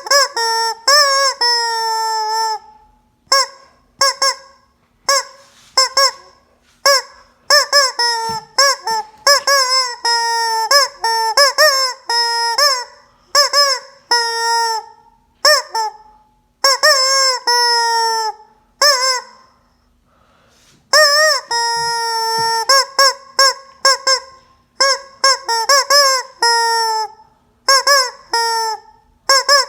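Rubber squeeze-toy chicken squawking over and over, each squeeze a short honking squawk that starts sharply and bends in pitch, some held for about a second. The squawks come in quick irregular runs, with a brief pause a little past the middle.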